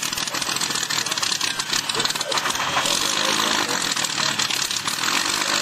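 Messerschmitt Bf 109 G-10's piston engine running on the ground at low power, a fast, even throbbing.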